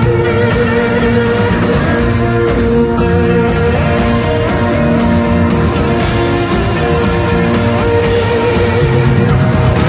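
Live rock band playing an instrumental passage, with electric guitars over bass and a steady beat.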